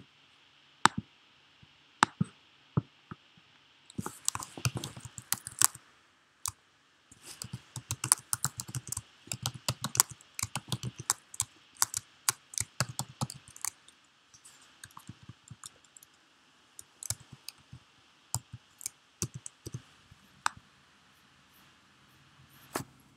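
Typing on a computer keyboard. A few separate key presses come first, then quick runs of keystrokes from about four seconds in to about fourteen seconds, thinning to scattered taps later on.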